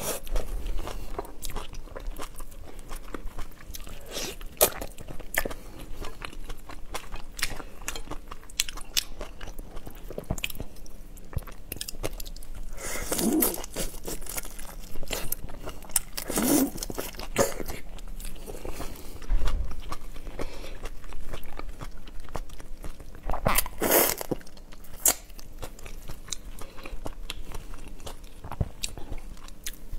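Close-miked eating of whole raw shrimp in spicy sauce: crunching and chewing through shell and flesh, with many small clicks and three louder mouth sounds spread through.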